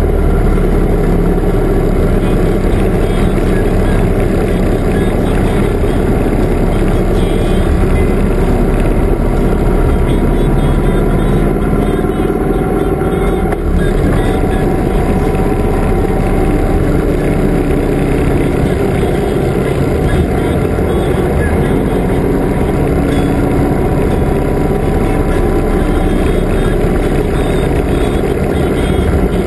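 Touring motorcycle riding at a steady cruising speed: its engine running with dense wind noise over a camera mounted on the bike. The sound holds steady throughout.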